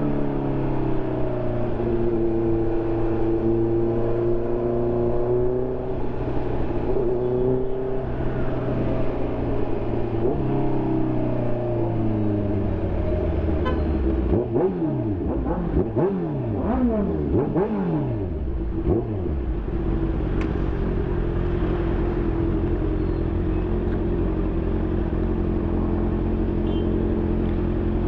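2020 Honda CB650R's inline-four engine through an SC Project aftermarket exhaust, running at steady revs with slow changes in pitch. Past the middle it revs up and down several times in quick succession, then settles into a steady low note.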